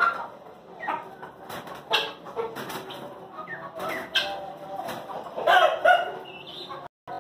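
Aseel roosters clucking and calling, with short bursts of wing flapping and scuffling as they spar. The loudest calls come near the end.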